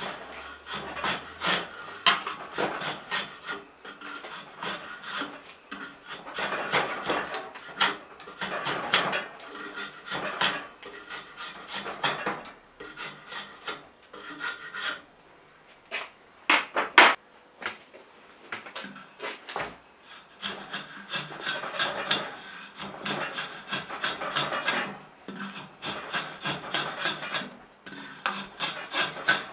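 Hand rasp and file scraping across an ash handle blank in repeated back-and-forth strokes, in runs with short pauses, as the wood is rough-shaped into a hammer handle.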